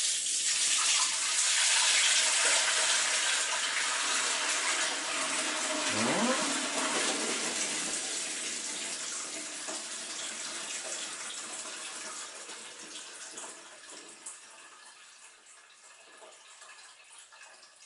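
Liquid poured in a stream from a large stainless steel pot through a sieve into another pot, loudest at first and thinning steadily to a faint trickle over the last few seconds.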